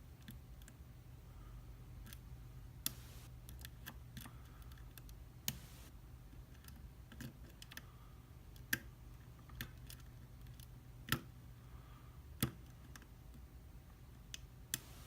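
Lock pick and tension wrench clicking in the keyway of a pin-tumbler challenge lock as the pins are worked. Scattered sharp ticks with no set rhythm, a handful of them louder.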